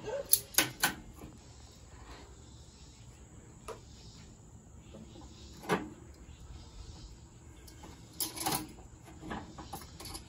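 Metal grilling tongs clicking and clacking against the cooking grate of a Weber Summit charcoal grill as slabs of raw baby back ribs are laid down and shifted. A few sharp knocks, bunched just after the start and again about eight seconds in, with single ones in between.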